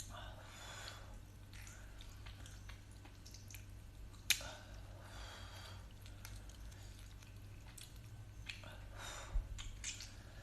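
Boiled sea snail meat squelching wetly in a few soft spells, with one sharp click a little over four seconds in.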